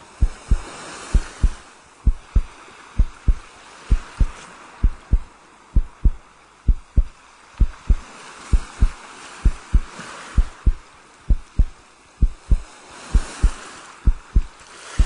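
A steady pulse of deep, dull thumps, about three a second, over a soft hiss that swells up and dies away every few seconds, as on an abstract film's experimental soundtrack.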